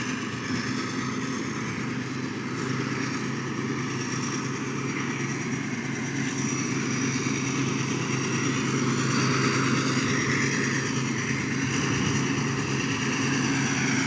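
Caterpillar 12F motor grader's turbocharged diesel engine running steadily as the machine drives up and passes close by, growing gradually louder, with a turbo whine the owner calls still sweet.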